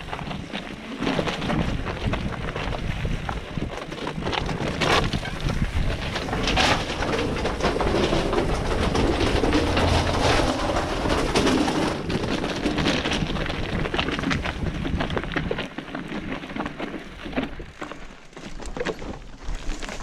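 Mountain bike rolling over loose gravel and rock, tyres crunching and the frame and parts rattling, with many small clicks and knocks. It is loudest through the middle, while the bike passes through a rock-cut tunnel.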